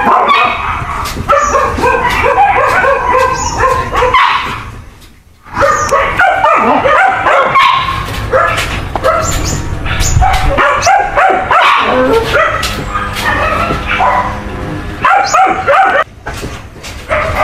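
Several dachshunds barking and yipping in quick, overlapping calls as they play, with a short lull about five seconds in.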